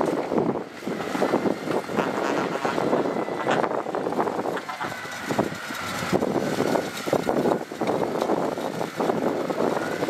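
Diesel heavy machinery working sand, a small crawler bulldozer with mini dump trucks: engines running under load with irregular clattering and a faint thin high whine.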